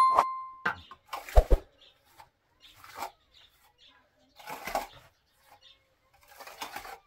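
A single bell-like ding at the start, fading out within the first second, with two sharp clicks just after. Then a steel trowel scrapes over wet mud plaster on a wall in short, faint strokes, about one every one and a half seconds.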